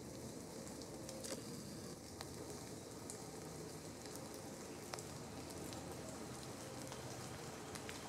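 Steady outdoor background noise with a few faint, scattered ticks, and no bird calls standing out.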